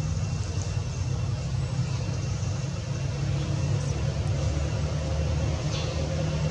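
Steady low engine rumble, like a motor vehicle running.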